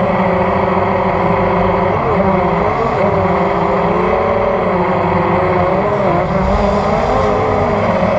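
Hexacopter's electric motors and propellers whining steadily in flight, heard from the onboard camera, with several pitches sliding up and down together in the middle as the craft manoeuvres.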